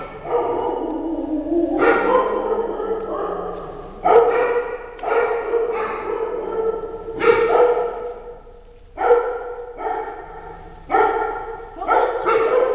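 Several shelter dogs barking and yelping in their kennel cages, barks coming in overlapping volleys every second or so, with a short lull about eight seconds in.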